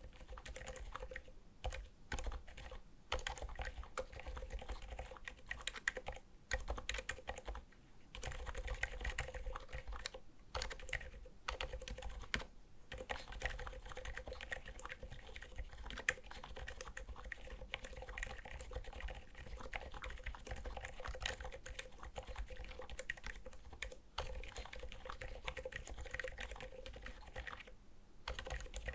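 Continuous typing on a Skog Reboot mechanical keyboard with Seriko silent linear switches: a rapid, irregular stream of soft, muted keystrokes, broken by a few brief pauses.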